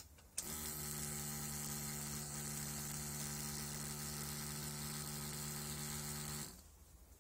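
Electric starter motor of an Aprilia SR50 Ditech cranking its 50cc two-stroke engine, which does not fire. It is being turned over to build pressure on a test gauge. There is a click about half a second in, then a steady whir for about six seconds that stops near the end.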